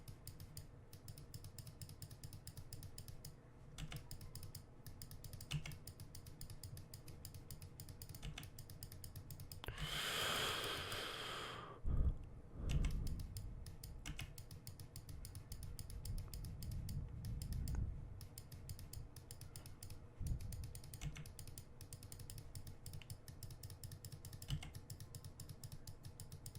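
Soft clicking of a computer mouse and keyboard during desktop editing work, with a brief rush of noise about ten seconds in and a few low thumps just after it.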